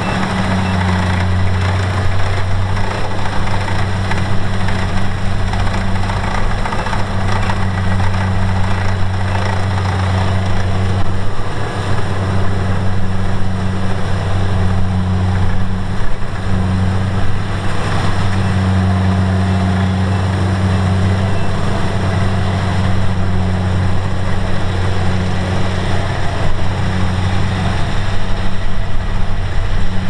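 Kubota DC-70 Plus combine harvester's diesel engine running steadily as the machine cuts and threshes rice: a loud, continuous low drone.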